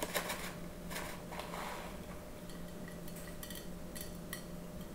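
A packet of toffee chips crinkling as it is shaken and spooned from, with light scattered ticks of the chips and spoon against a plate.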